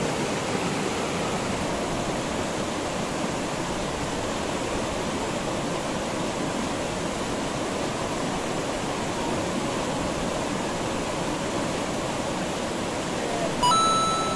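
Steady rushing of fast river water over rapids, an even hiss with no break. A short high-pitched tone sounds near the end.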